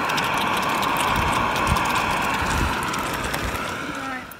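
Beef in black bean sauce sizzling and crackling in a frying pan over a camping gas stove, with the steady rush of the burner underneath; it fades away near the end.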